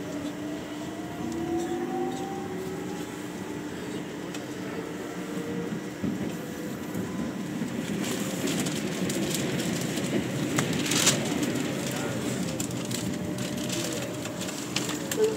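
Metro train heard from inside the car, pulling away: the traction motors whine up in pitch as it accelerates over the first few seconds, under a steady rumble of wheels on rail. About halfway through the running noise grows rougher, with scattered sharp clicks and rattles.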